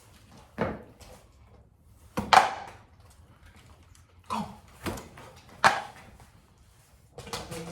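Five sharp thuds at uneven intervals, the second the loudest, then a quick run of light taps starting near the end.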